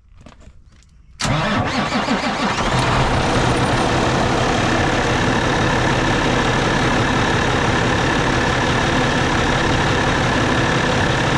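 Cummins ISX15 inline-six diesel starting up: it catches abruptly about a second in and settles within a couple of seconds into a steady idle. This is the first start after an oil pan and gasket replacement.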